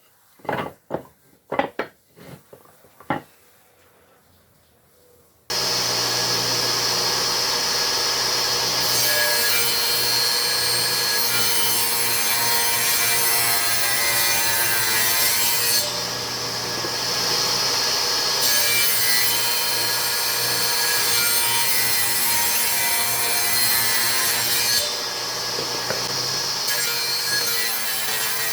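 A few sharp wooden knocks, then about five and a half seconds in an electric power tool starts suddenly and runs steadily, working wood with a continuous cutting noise over its motor hum. The cutting sound changes twice, at about 16 and 25 seconds in.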